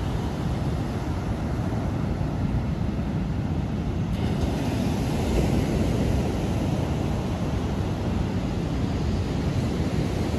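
Ocean surf washing onto a sandy beach, a steady wash of noise that swells a little about four seconds in, with wind noise on the microphone.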